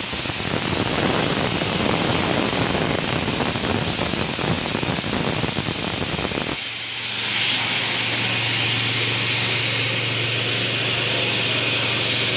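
CNC double-head aluminium cutting saw with 450 mm blades cutting an aluminium profile, a dense harsh cutting noise. About six and a half seconds in the cut ends abruptly and the machine runs on with a steady hum and hiss.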